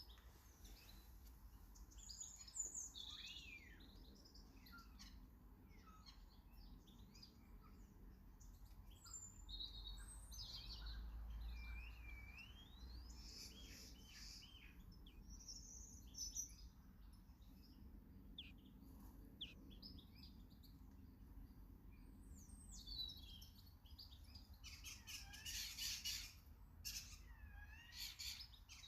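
Garden birds chirping and calling in short, high notes and whistled glides, with a denser, louder bout of calls near the end.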